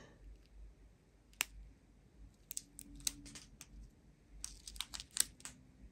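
Small plastic bags of diamond-painting drills being handled: faint crinkling and scattered sharp clicks, one louder click about a second and a half in and quick clusters of clicks near the middle and toward the end.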